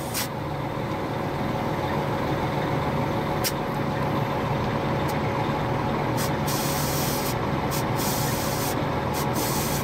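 Air compressor running steadily, pumping air through a hose to bring the rear of a lifted Toyota Land Cruiser up to about 35 PSI. A steady hum with a hiss of air over it, and short bursts of hissing in the second half.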